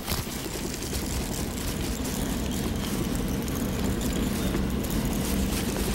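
A steady low motor drone under a constant hiss of wind and water.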